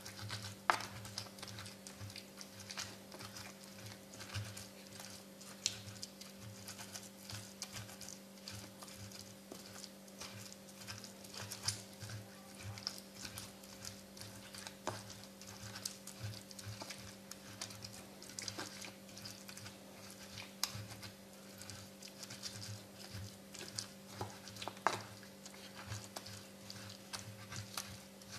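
Pestle grinding wet fried chili-and-tomato sambal in a cobek mortar: repeated soft scraping and squishing strokes with a few sharper knocks of the pestle against the bowl, under a steady low hum.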